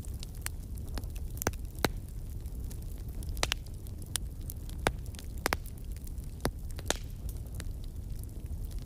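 Steady low rumble with irregular crackling clicks, a handful of them sharper and louder than the rest.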